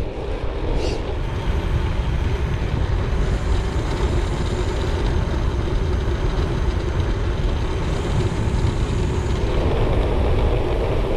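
Wind buffeting a handlebar-mounted action camera's microphone while cycling at speed, a steady low rumbling noise with the hum of gravel-bike tyres rolling on tarmac underneath.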